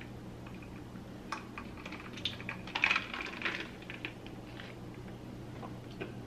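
Light clicks and clinks of ice cubes and a drink bottle being handled as the iced drink is tasted, busiest about three seconds in, over a faint steady hum.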